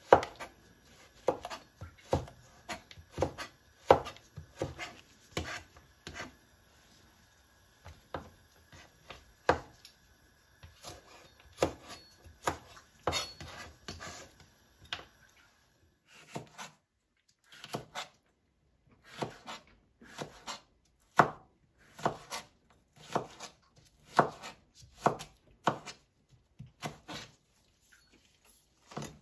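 Kitchen knife cutting vegetables into strips on a plastic cutting board: irregular sharp knocks of the blade striking the board, one to two a second, with short pauses between runs of cuts.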